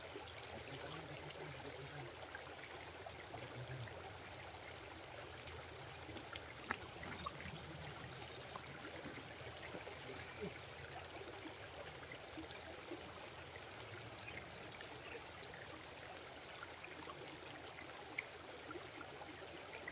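Faint steady outdoor background hiss, with a few faint scattered ticks.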